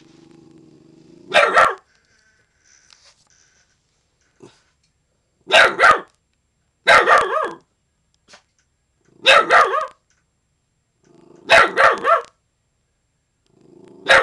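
Young American bulldog and Jack Russell terrier mix alarm-barking at someone in the yard: a low growl that breaks into a bark, then single and doubled barks every couple of seconds, with another low growl leading into the last barks.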